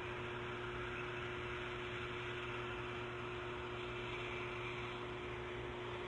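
Steady background hiss with a low hum and a constant mid-pitched tone, typical of a nest camera's live microphone feed.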